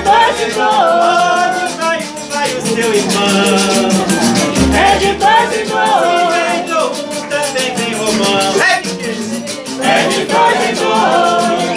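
Live samba: several men singing together over a strummed cavaquinho and another plucked string instrument, with a quick rattling percussion beat.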